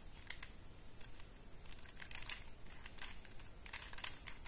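QJ Super Square-1 twisty puzzle being turned by hand: soft, irregular clicking of its plastic pieces as the layers are twisted and realigned.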